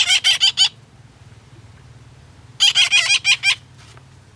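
Young parrots squawking: two bursts of rapid, harsh repeated calls, about five at the start and about seven more a little over halfway through.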